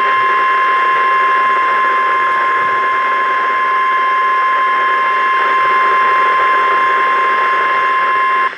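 NOAA Weather Radio 1050 Hz warning alarm tone, the Emergency Alert System attention signal that marks a warning broadcast. It is a single loud, steady tone over radio reception hiss and cuts off suddenly near the end.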